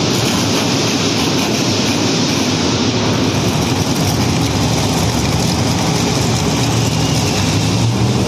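Monster truck engines running loudly and steadily, a continuous low rumble without distinct revs.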